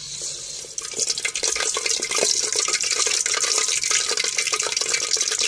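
Hot oil sizzling and crackling as a maida-batter-coated suzhiyam ball deep-fries in it. The sizzle starts as the ball goes in and grows louder about a second in.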